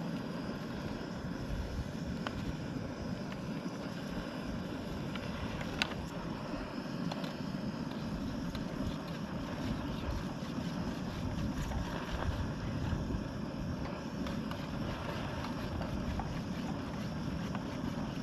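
Portable camp stove burner running steadily under a cup of water being brought to a boil, with wind buffeting the microphone. A single sharp click about six seconds in.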